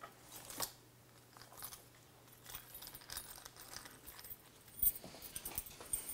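Scattered light metallic clinks and jingling of hand tools and small parts being handled during motorcycle work, with a sharper clack about five seconds in.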